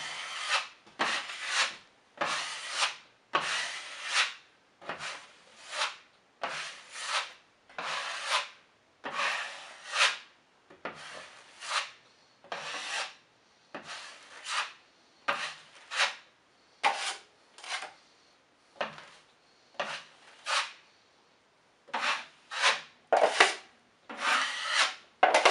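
A steel drywall knife scraping joint compound across a drywall patch in quick, repeated strokes, one or two a second, each a short rasping swipe.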